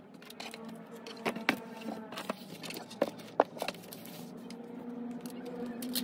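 Handling a glass screen protector and its paper wrapping: rustling with a few sharp taps and clicks, two around a second and a half in and two more around three seconds in.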